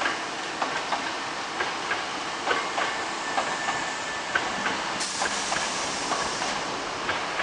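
Osaka Municipal Subway 66 series electric train easing to a stop at a platform, its wheels clacking over rail joints under a faint high whine. About five seconds in there is a burst of air hiss lasting a second and a half as the train stands.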